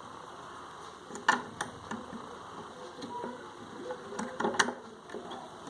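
Metal parts of a USHA sewing machine clicking and knocking as a part is worked by hand back into its bracket, with the handle turned to line it up. There are a few sharp clicks, the loudest just over a second in and again around four and a half seconds, with light rattling between.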